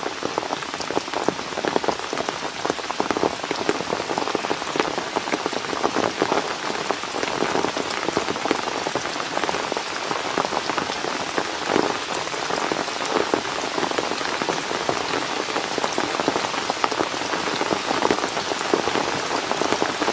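Steady rain falling: a dense hiss made of many small drop hits.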